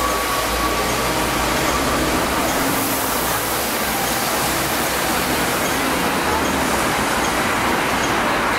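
Hong Kong double-decker tram running, a steady, even rumble and rattle of rolling noise without distinct knocks.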